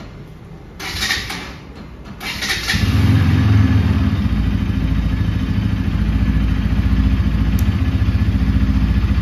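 Bajaj Pulsar NS200's single-cylinder engine being started: the electric starter cranks for about two seconds. The engine catches just under three seconds in and settles into a steady idle.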